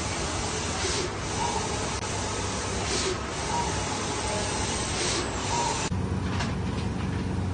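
Large-format sublimation printer running, its print-head carriage sweeping across the paper with a steady hiss that swells about every two seconds. About six seconds in the sound cuts to the steady low hum of a rotary heat-transfer calender machine.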